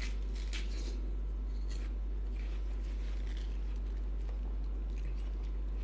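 Watermelon being bitten and chewed: a few faint, soft crunches and wet chewing sounds over a steady low hum.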